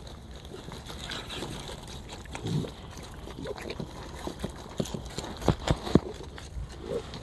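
Raccoons eating cheese puffs from a plastic bag: crunching and plastic crinkling, with a few sharp clicks between about five and six seconds in.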